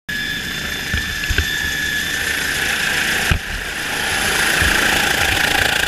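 Helicopter turbine whine and rotor noise heard on board: a steady high whine over a loud rushing noise, with a few low knocks, the sharpest about three seconds in.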